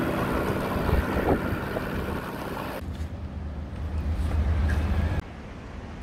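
Steady wind rumble on the microphone and road noise while cycling along a road with traffic. The sound changes abruptly twice.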